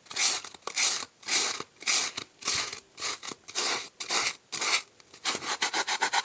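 Sandpaper rubbing over polystyrene foam in rasping back-and-forth strokes, about two a second, turning to quicker, shorter strokes near the end.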